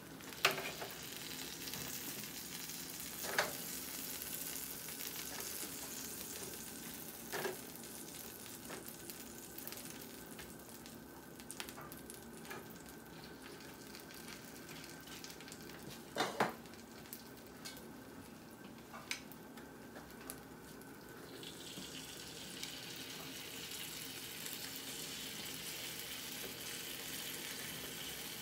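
Chicken drumsticks sizzling with a steady hiss on a wire rack in a hot electric oven. A few sharp clicks of metal against the rack sound as they are turned with tongs and brushed with sauce.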